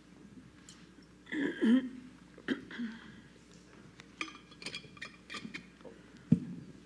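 Scattered audience noises in a meeting hall: a cough, small clicks and clinks, and a single sharp thump near the end.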